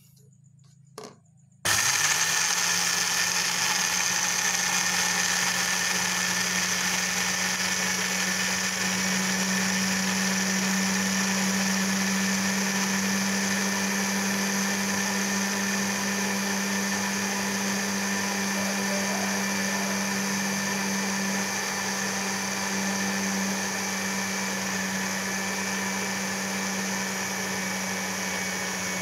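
Panasonic electric blender: a click, then the motor starts abruptly about two seconds in and runs steadily with a strong low hum, grinding dry crushed instant noodles into a fine powder.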